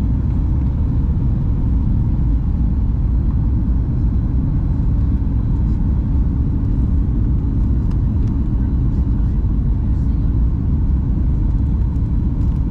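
Steady low rumble of a Boeing 737 airliner's cabin in flight: jet engine and airflow noise heard from a window seat, with a faint steady hum on top.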